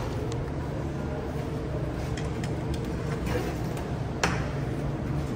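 Steady low hum of commercial kitchen machinery, with one sharp knock about four seconds in.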